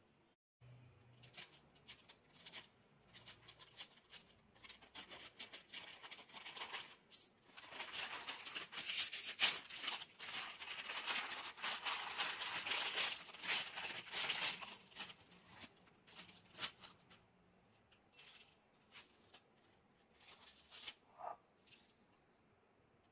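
Plastic instant-ramen packet crinkling and rustling as it is torn open and the noodle block and flavour sachets are taken out. The crinkling is densest and loudest through the middle, then thins to scattered crackles of the small sachets being handled near the end.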